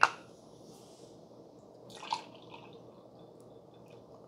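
Bottled iced coffee poured into a glass mug: a faint trickle and splash of liquid. A sharp click comes right at the start, and a short splash about two seconds in.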